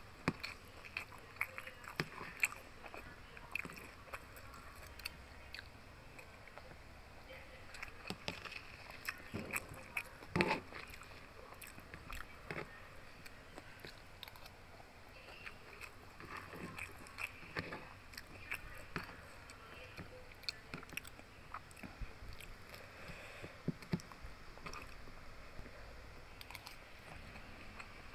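Close-up chewing and biting of a mouthful of rice with crispy pork belly and chili sambal: irregular crunches and wet mouth clicks, with a louder crunch about ten seconds in.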